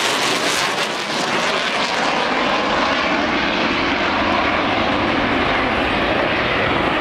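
Twin-engine Boeing F/A-18 Hornet fighter jets flying overhead just after takeoff: a steady engine noise whose high hiss fades after about two seconds as the jets climb away, leaving a lower, steady noise.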